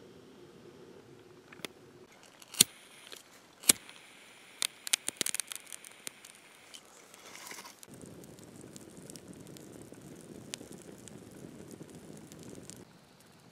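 Wood campfire kindled with birch bark, crackling: a few loud sharp pops and a quick run of snaps in the first half. From about eight seconds in there is a steady low rush of burning flames with scattered crackles, which cuts off shortly before the end.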